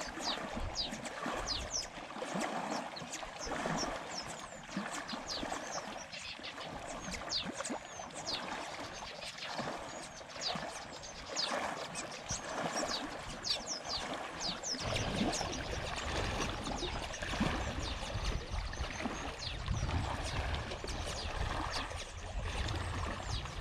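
Lake water lapping and splashing against a reedy shore, in soft washes about once a second, while many birds give short, falling chirps. A low rumble joins in about fifteen seconds in.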